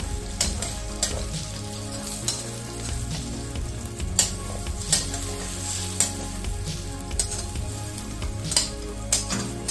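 Eggs sizzling as they fry in hot oil in a wok, stirred and scraped with a metal slotted spatula, with sharp clicks of the spatula against the wok every second or so.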